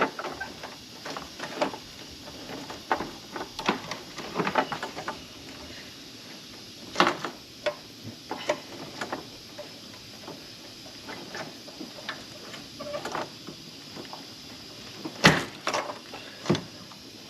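Long needle-nose pliers clicking and scraping down inside a spark plug well, with irregular small clicks and knocks and two sharper knocks, one about halfway through and one near the end. It is the sound of probing for a broken-off coil-boot rubber stuck on the spark plug.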